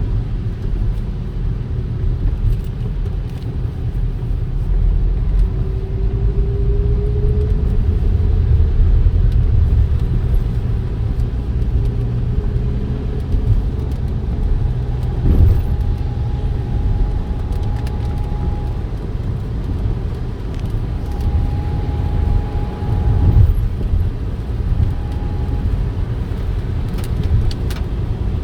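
Steady low rumble of a car on the move, with a faint hum that rises slightly in pitch, a higher whine that comes and goes, and a couple of brief knocks.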